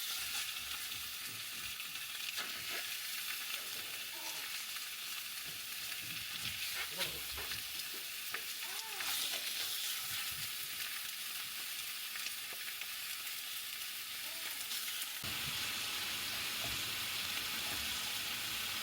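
Food sizzling in a hot frying pan, a steady hiss that grows louder about fifteen seconds in.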